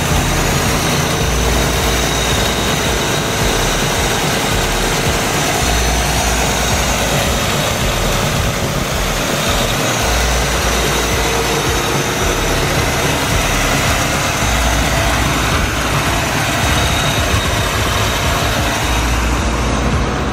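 1987 Chevy El Camino's engine idling steadily, running on its completely stock exhaust with the catalytic converters still in place.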